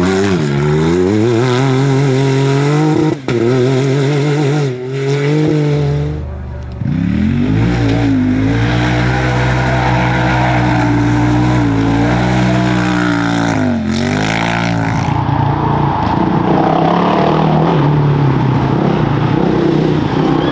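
Off-road side-by-side buggy engines revving hard as they power past on dirt, the pitch climbing and falling with gear changes, cutting from one vehicle to the next.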